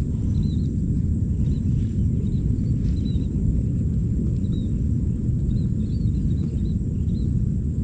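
Steady wind rumble buffeting the microphone, with faint, short high-pitched chirps scattered throughout.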